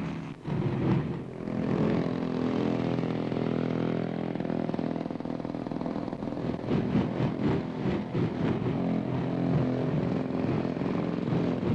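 Motor scooter engine running steadily under load as the scooter is ridden hard over rough, bumpy ground.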